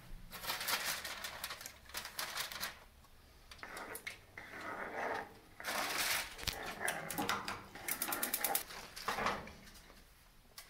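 Aluminium foil crinkling as it is handled over a cast-iron skillet, in several separate bursts of crackling, with a quick run of clicks about eight seconds in.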